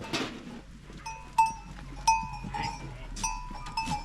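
Metal bells on grazing livestock clinking on and off in short ringing strikes, with a brief noisy rush right at the start.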